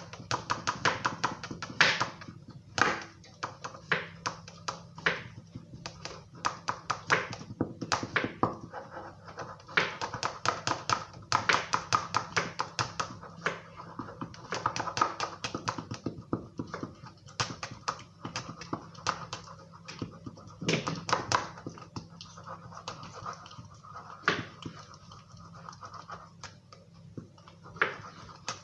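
Metal spoon stirring and clinking against a bowl of dish soap, played fast-forward, so the strokes run together into rapid bursts of clicks and taps.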